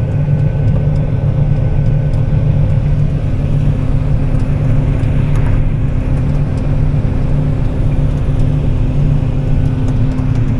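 Heavy diesel farm machinery running steadily under load during wheat harvest, a constant deep drone with a steady hum.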